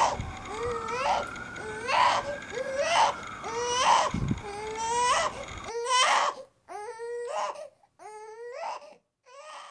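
A baby crying in a run of short wails, about one a second, each rising sharply at its start.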